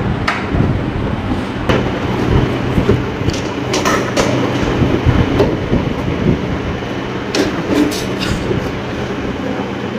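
Carrier window air conditioner running with a loud mechanical rattle and clatter over a steady low hum, broken by irregular sharp knocks. This is the abnormal high noise that was traced to the fan motor/fan booster.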